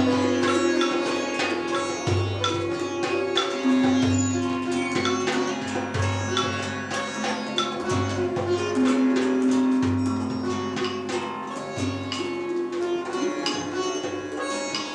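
Improvised ethnic jam: a sitar plays busy plucked runs over held low drone notes, with hand-drum (djembe) percussion and a deep low beat about every two seconds.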